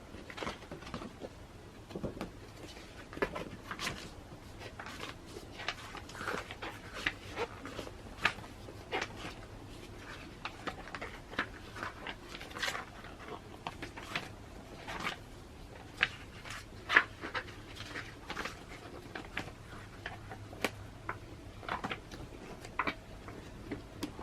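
Magazine being handled and its glossy pages turned: irregular short paper rustles and light taps, a few every second, with the loudest ones near the middle.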